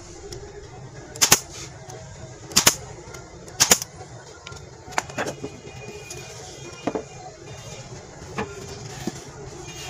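F50 pneumatic brad nailer firing three times into a wooden frame, about a second apart, each a sharp crack. Then a few lighter knocks as the wooden board is handled.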